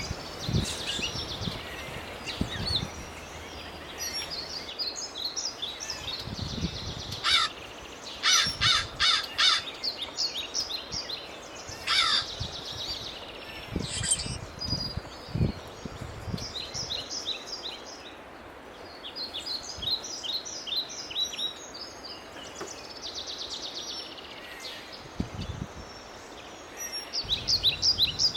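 Songbirds singing, with short trilled phrases repeated again and again. A burst of loud, harsh, repeated calls comes about eight to ten seconds in.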